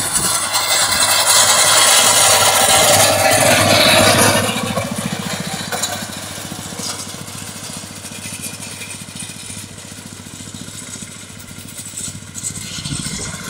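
Tractor engine running with a drum mower cutting alfalfa, a steady mechanical drone with a whirring hiss. It is loudest for the first four seconds, then drops back and runs on quieter and steady.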